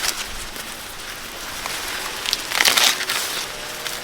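Dry corn plants rustling and crunching as they are handled, with a louder crunch of leaves or husks between two and a half and three seconds in.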